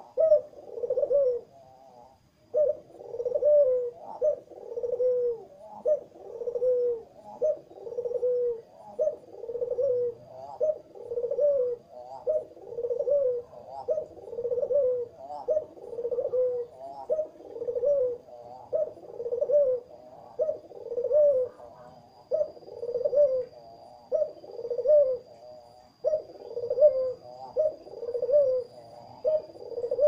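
A ringneck (Barbary) dove giving its courtship cooing. The short rising-and-falling coos come in a steady series, a little more than one a second, with a brief pause a couple of seconds in.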